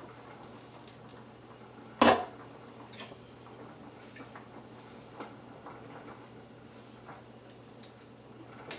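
Kitchen clatter of utensils and cookware: one sharp clack about two seconds in, then a few lighter taps and clicks, over a steady low hum.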